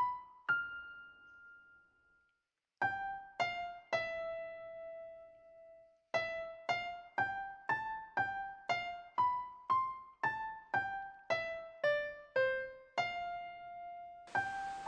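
Background music: a solo piano playing a slow melody of single notes. There is a brief silence about two seconds in, then an even run of about two notes a second.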